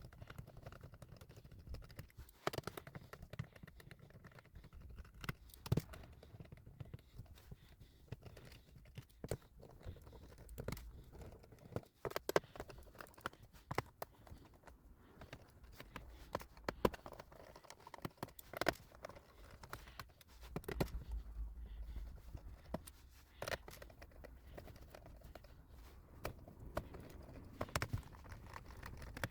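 Scattered small clicks and taps of a screwdriver and hands on a laptop's plastic underside as its screws are backed out, over a faint low hum.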